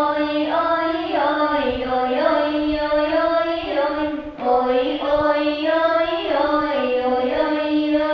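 A child singing a recitation unaccompanied, in long held phrases, with a short break for breath about four seconds in.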